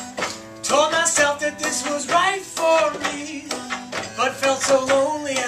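A man singing a slow song to his own strummed acoustic guitar, with the lines "Told myself that this was right for me, but felt so lonely at this company". The voice comes in about half a second in.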